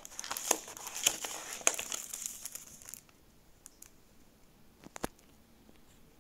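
Paper CD sleeve and cardboard box packaging crinkling and rustling as the driver disc is lifted out, for about three seconds, then a single light tap about five seconds in.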